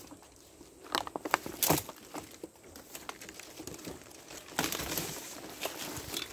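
Dry leaves, twigs and undergrowth rustling and crackling as someone pushes through thick forest on foot, with a cluster of sharp snaps between one and two seconds in and another burst of rustling a little before five seconds.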